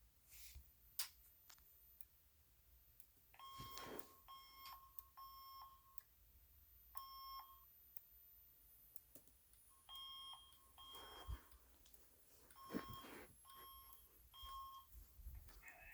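Faint alert tone from a System Sensor SPSW fire alarm speaker strobe, short beeps in groups of two or three, the tone that comes before its voice evacuation message. A few sharp clicks stand out above it, about a second in and again near eleven and thirteen seconds.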